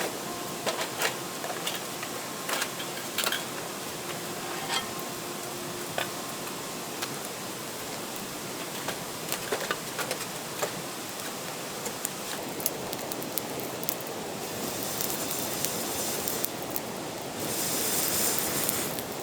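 Wood campfire crackling, with scattered sharp pops over a steady hiss that grows louder near the end.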